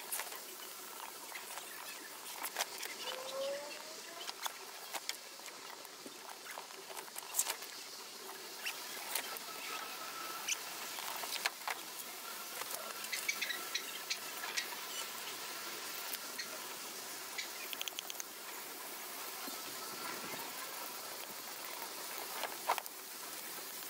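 Rustling and crinkling of a collapsible ice-bath tub's fabric as it is unfolded and pulled upright, with scattered light clicks and taps from handling its parts.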